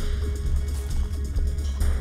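Background soundtrack music with a heavy, steady bass and drums.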